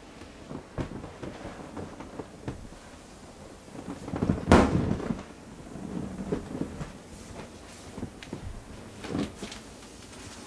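Gloved paws rubbing and tapping on an inflated vinyl pool toy, with scattered small clicks and rustles, and one sharp bang about four and a half seconds in that is the loudest sound.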